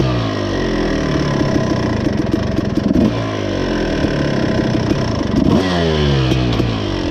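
Dirt bike engine being ridden, revving up and dropping back again and again as it accelerates and shifts gears.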